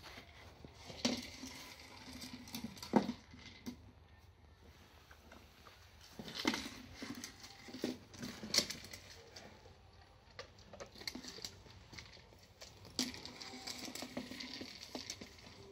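A dog pushing a red rubber treat-dispensing toy around brick paving with its nose and mouth: irregular knocks and scrapes as the toy tips over and rolls, with a few louder knocks scattered through.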